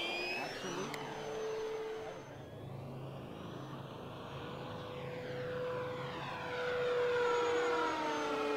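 Electric motor and propeller of an E-flite T-28 Trojan 1.2m RC model plane running at high power on a 4S LiPo: a steady whine that fades as the plane flies off and grows louder again as it comes back, its pitch dropping slightly as it passes near the end.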